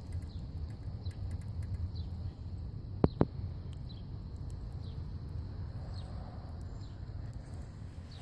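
Wood fire in a fire pit ticking and crackling faintly, with two sharp clicks a fifth of a second apart about three seconds in, over a low steady rumble. Short high chirps of small birds come now and then.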